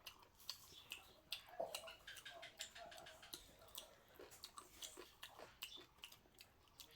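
Faint close-up chewing of chicken curry: soft, wet mouth clicks and smacks come irregularly, several a second.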